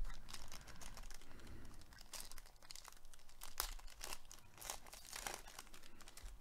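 Foil trading-card pack crinkling and tearing as it is ripped open by hand, the wrapper rustling in irregular crackles as the cards are pulled out.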